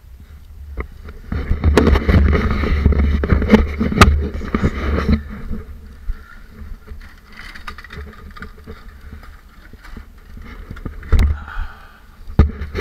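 Wind buffeting the microphone in gusts, with knocks and rustling as the camera is handled and moved about.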